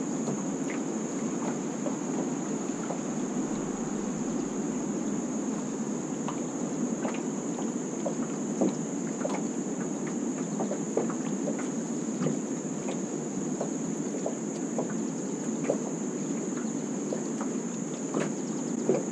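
River water lapping against the hull of a drifting boat, with small sharp splashes and ticks scattered through it. Over it runs a steady high-pitched hum.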